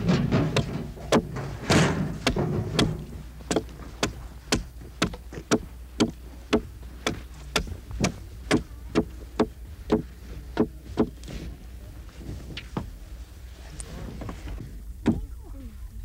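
Hatchet striking wood in a steady series of sharp knocks, about two a second, stopping a few seconds before the end.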